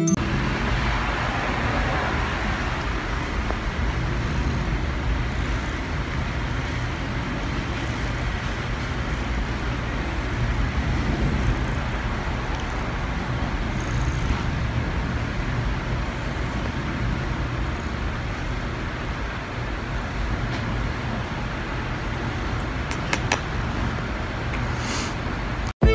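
Tabby cat purring steadily, close up to the microphone: a continuous low rumble.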